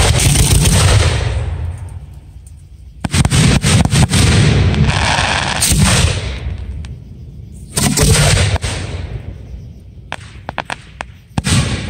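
Aerial fireworks shells bursting, each a loud boom that rings out for a second or two. A cluster of sharp cracks and booms comes about three seconds in, another boom near eight seconds, a quick string of about five small cracks just after ten seconds, and a fresh boom near the end.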